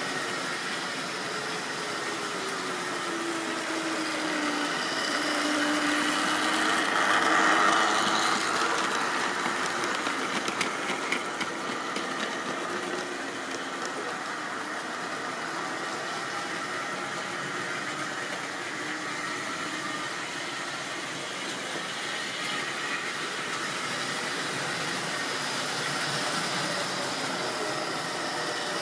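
Model train running on the layout track: a small electric motor whirring with wheels rattling and clicking over the rails. It swells to its loudest about seven to eight seconds in as a rake of coaches passes, then settles into a steadier running noise as a second train approaches.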